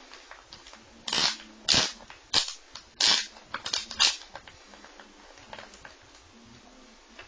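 A run of about eight sharp clicks and knocks, hard objects handled and set down, bunched between about one and four seconds in, with only faint small handling sounds around them.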